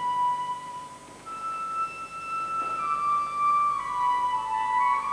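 Background music: a slow melody of long held notes on a wind instrument.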